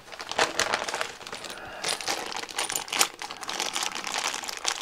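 Small metal kit hardware rattling and clinking inside a clear plastic parts bag as it is handled, with the bag crinkling: a dense, irregular run of light metallic clicks.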